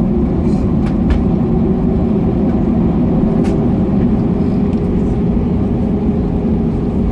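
Cabin noise of an Airbus A321-212 taxiing, heard from a window seat over the wing: a steady low rumble from its CFM56 turbofans and the rolling airframe, with a faint hum and a couple of faint clicks.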